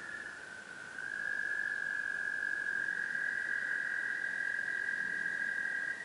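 Tree frogs calling in a steady, high-pitched chorus of two overlapping pitches, which gets louder about a second in.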